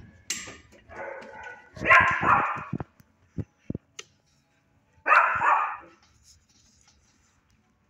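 Dog barking in three short bursts, the loudest about two and five seconds in, with sharp clicks and knocks between.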